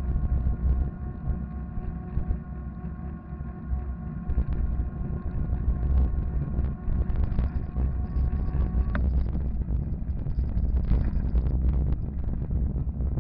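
Electric fatbike riding on rough asphalt: the 250 W, 48 V electric drive motor gives a steady whine over wind buffeting the microphone and a low tyre-and-road rumble. About nine seconds in, the whine rises sharply and cuts out, leaving wind, rumble and small knocks from bumps in the patched road.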